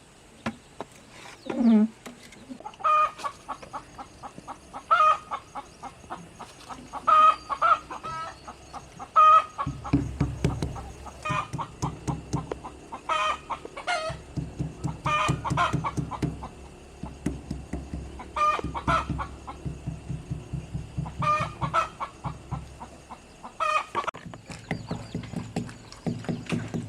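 Chickens clucking, short calls repeated every second or two. For most of the middle stretch a low, fast rhythmic pulsing runs beneath them.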